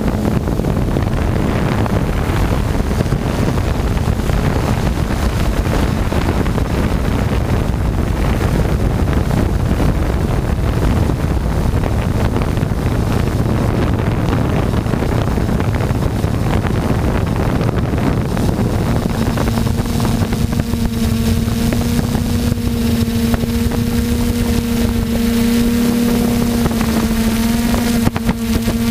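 DJI Flame Wheel multirotor drone's electric motors and propellers buzzing, heard through its onboard camera with wind rushing over the microphone. About two-thirds of the way through, the buzz settles into a steady, even-pitched hum.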